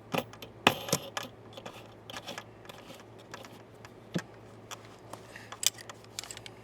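Scattered small metallic clicks and taps as a keeper nut is fitted onto the back of a new RV compartment-door lock cylinder.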